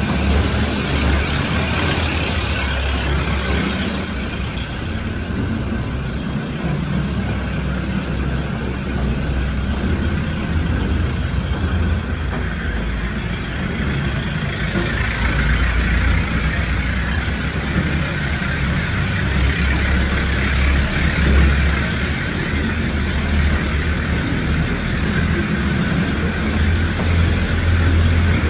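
Air-powered underground mine train running through a rock tunnel: a steady low rumble under a constant wash of noise.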